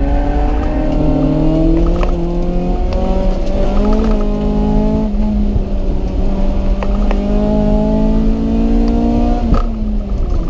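Car engine pulling under load on a race track, its pitch climbing steadily and dropping sharply at each gear change, over a heavy low rumble of wind and road noise.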